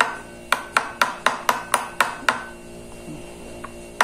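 Kitchen knife chopping through fried tempe onto a hard countertop: a quick run of about nine sharp knocks, roughly four a second, stopping about two and a half seconds in.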